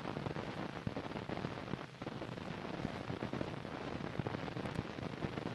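Steady hiss with scattered crackles and pops: the surface noise of an old film soundtrack, with no narration or music over it.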